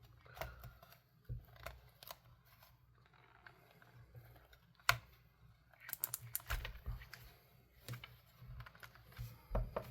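Faint handling noises: scattered small clicks and rustles of the stuffed toy's fabric and a plastic zip tie being worked, with one sharp click about five seconds in and a quick run of clicks around six seconds in.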